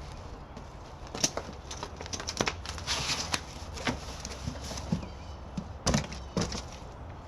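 Handling noise of a dehumidifier being unpacked: several sharp knocks and clicks at irregular intervals, with a rustling scrape of packing material about three seconds in.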